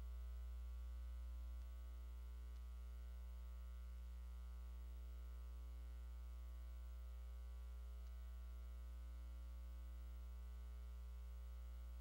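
Steady electrical mains hum with a stack of overtones, dropping a little in level about a second and a half in.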